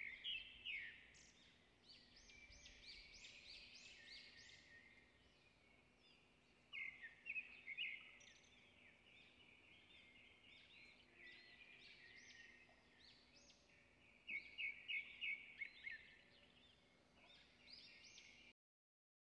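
Birds chirping and twittering in many short, high notes, some in quick runs of repeated chirps, over a faint steady hum; the sound stops abruptly near the end.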